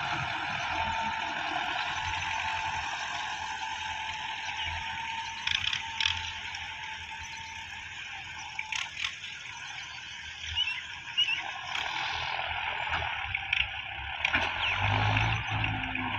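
Diesel tractor under heavy load, hauling an overloaded trolley of soil: its engine fades as it moves away, with a few rattles and clicks in the quieter middle stretch, then its low engine note comes back loud near the end as it approaches again.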